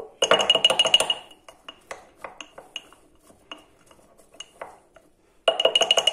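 A spoon stirring a thick honey, onion and garlic mixture in a large glass jar, clinking and scraping against the glass. There is a quick run of clinks in the first second, scattered single taps through the middle, and another run near the end.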